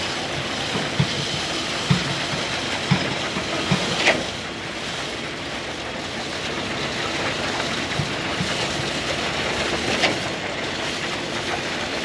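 A concrete pump truck runs steadily while pumping concrete out through the boom's end hose. Dull knocks come about once a second for the first four seconds, with a few more later, typical of the pump's piston strokes pushing concrete through the line.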